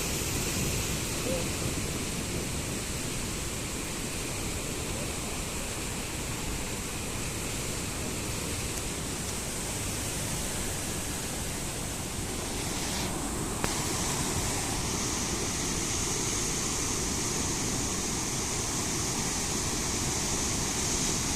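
Indus River in flood, fast-running floodwater rushing steadily, the water in full force.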